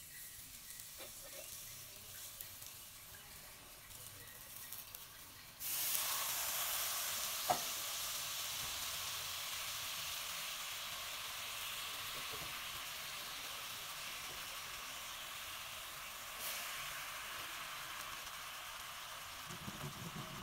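Sugar and palm sugar melting with water in a hot nonstick wok and sizzling. The sizzle starts suddenly about six seconds in and then runs steadily, with one sharp click shortly after it starts.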